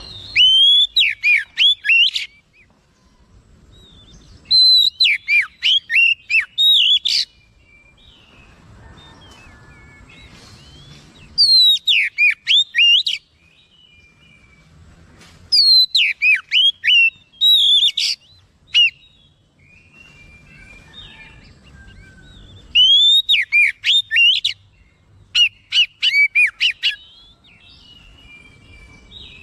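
Male oriental magpie-robin (kacer) in full, excited song. It sings six bursts of rapid, sweeping whistled notes, each a second or two long, with short pauses between them.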